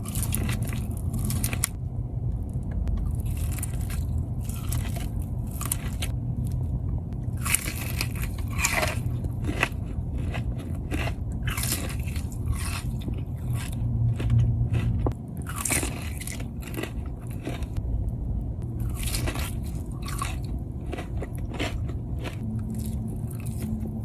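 Close-miked biting and chewing of corn on the cob: many crisp, crackly bites and mouth noises at irregular intervals, over a steady low hum.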